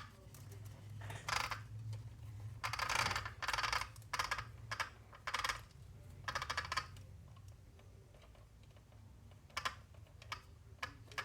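Small plastic and metal RC-car parts clicking and rattling in irregular clusters as they are handled and fitted together by hand, over a faint steady low hum.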